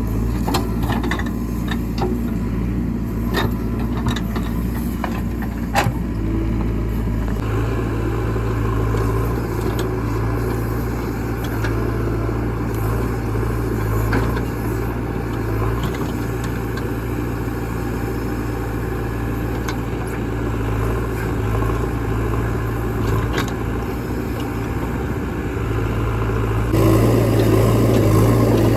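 Diesel engine of a JCB 3DX Eco backhoe loader running steadily while it works, with a few sharp knocks in the first several seconds. The engine gets louder near the end.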